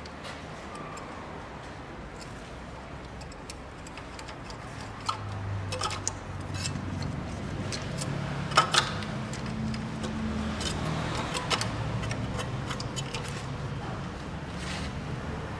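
Ratchet wrench clicking in short runs as spark plugs are unscrewed, with two sharper metal clinks about halfway through. A low hum sits underneath from about five seconds in.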